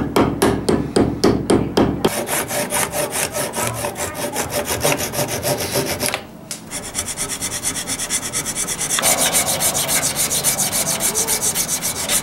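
A hammer taps a wooden spline into a crack, about four strikes a second, for the first two seconds. Then a hand rasp works quickly back and forth over the spline to trim it flush with the board, pausing briefly about six seconds in.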